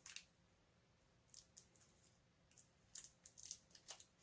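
Faint crinkling and small scattered clicks of thin protective plastic film being peeled off a plastic action figure's body by hand.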